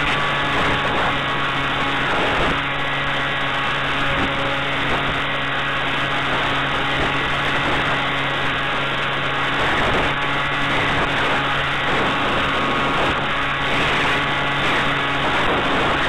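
Wind rushing over the microphone of a small onboard camera on a model aircraft flying in high wind: a steady noise with a constant low hum underneath.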